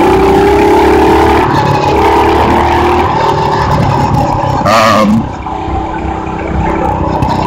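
Predator 212cc single-cylinder four-stroke engine of a mini bike running steadily under throttle at cruising speed. About five seconds in the engine note falls off and gets quieter.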